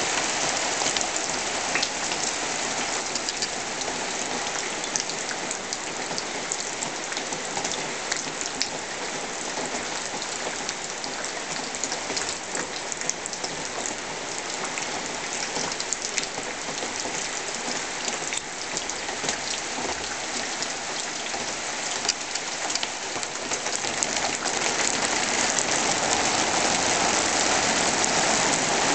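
Rain falling on a corrugated translucent plastic canopy roof: a dense, steady patter of many small drop ticks, growing a little louder near the end.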